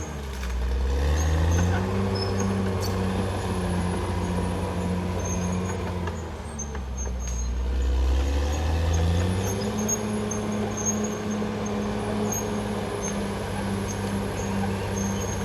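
Caterpillar D6R XL bulldozer's diesel engine running under load. The engine note sags near the start and again for a few seconds past the middle, then climbs back up.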